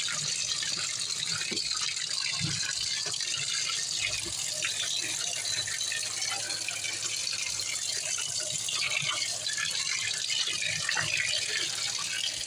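Steady rush of running water in the washing machine, with a few faint small knocks.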